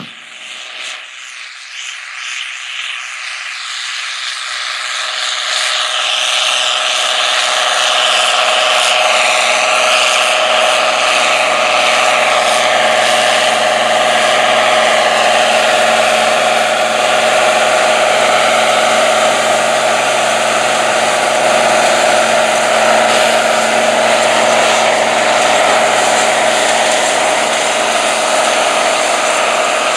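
International 6788 2+2 tractor's diesel engine running steadily as it pulls a Cyclo Air planter. It grows louder over the first several seconds as the rig comes closer, with a strong steady whine throughout.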